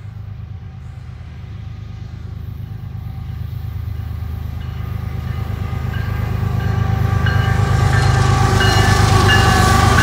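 Approaching BNSF diesel locomotives leading an intermodal freight train: a steady low engine drone that grows louder throughout as the lead unit nears, with higher rail and wheel noise joining in over the last few seconds.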